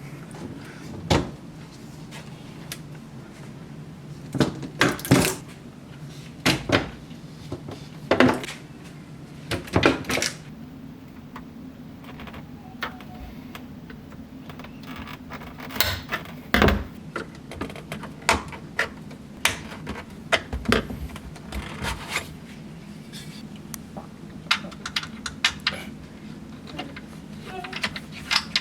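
Irregular knocks and clunks of a Samsung refrigerator's doors and plastic parts being handled, over its steady low running hum.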